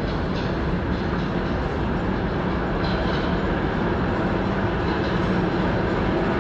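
Retired New York City subway train approaching through the tunnel into the station: a steady rumble of wheels on track that slowly grows louder.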